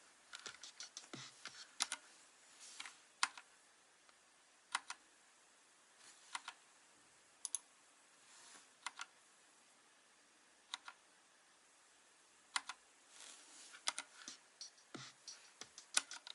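Keystrokes on a Vortex Race3 mechanical keyboard with Cherry MX Silver linear switches: single key presses spaced a second or more apart, with quicker runs of typing near the start and again near the end.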